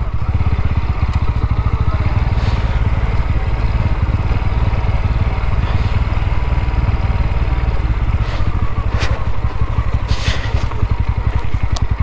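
Bajaj Pulsar NS160's single-cylinder engine running steadily as the motorcycle rides over a rough dirt trail, with a few short clatters and scrapes.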